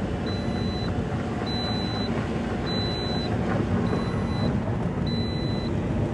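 A car's engine and tyre noise heard from inside the cabin while driving, a steady low rumble. A thin high-pitched beep repeats about once a second throughout.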